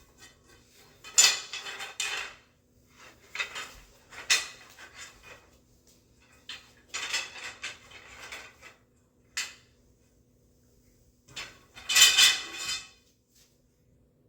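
Steel bed frame parts clanking and rattling metal on metal as they are handled during assembly, in a series of separate bursts with short pauses between them; the loudest come about a second in and near the end.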